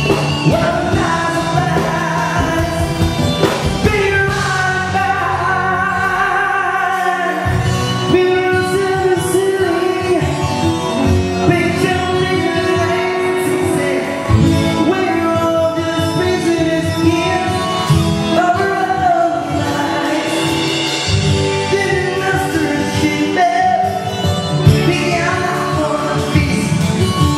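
Live band music with a singer singing into an amplified microphone.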